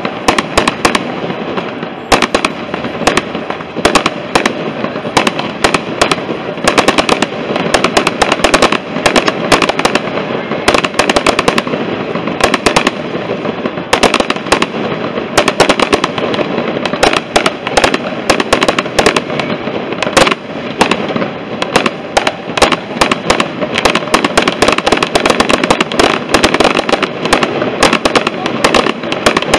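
Mascletà firework barrage: a dense, uneven string of loud firecracker bangs (masclets), several a second without a pause, over a continuous crackling haze.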